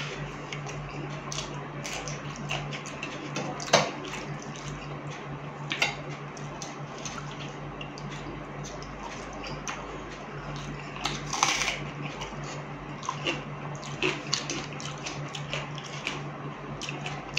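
Fingers squishing and scooping water-soaked fermented rice (panta bhat) in a steel bowl, with wet splashing and eating sounds of chewing and lip smacks, heard as many short, irregular clicks. A steady low hum runs underneath.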